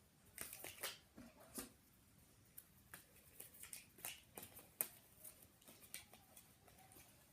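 Near silence with faint, scattered clicks and rustles, about a dozen of them.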